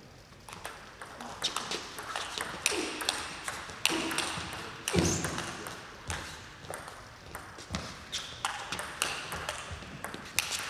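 Table tennis rally: the celluloid ball clicking sharply off the paddles and the table in quick succession, starting about half a second in. A few short shouts come between the clicks.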